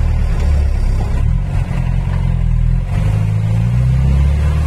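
Toyota's engine heard from inside the cabin while driving, a low running rumble whose pitch rises as it speeds up in the second half.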